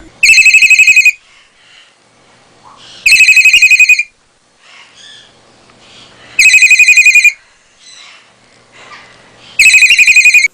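A telephone-style ring: four short trilling rings, each a rapid warble on one high tone, about three seconds apart.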